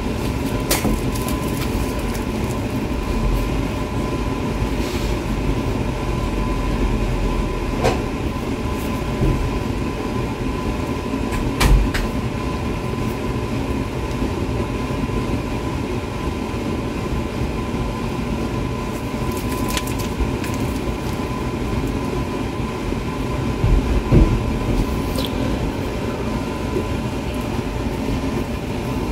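A steady mechanical drone with a constant hum, like a machine running, with a few brief clicks and knocks scattered through it.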